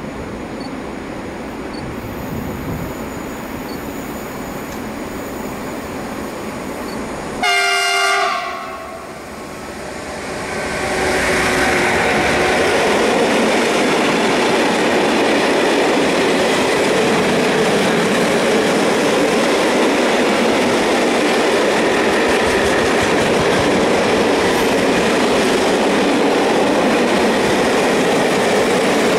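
An E6ACT electric freight locomotive approaches and gives one short, chord-like horn blast about seven seconds in. From about eleven seconds its long train of open coal gondola wagons rolls past steadily, with wheel-on-rail noise.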